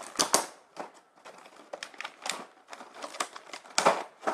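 Clear plastic blister tray being handled and pried open by hand, crinkling and clicking in irregular crackles, with a couple of sharper snaps just after the start and again near the end.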